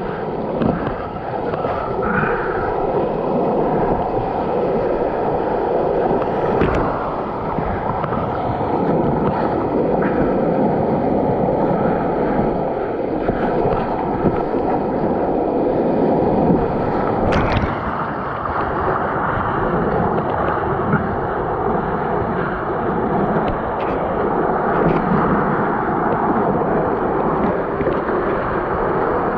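Churning whitewater rapids rushing and splashing around a slalom boat, heard from right on the boat, with a few sharper splashes, the strongest about 17 seconds in.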